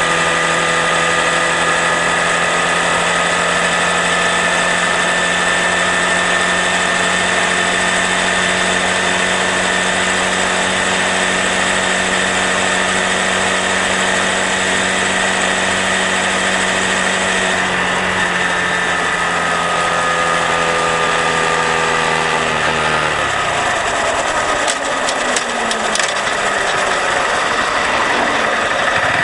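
Honda Grom's single-cylinder engine running at a steady cruising speed, then its pitch falling as it slows about three-quarters of the way through.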